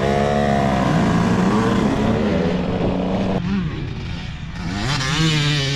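Dirt bike engines revving as the bikes ride off, the pitch repeatedly rising and falling through the gears, fading a little a few seconds in and then climbing again.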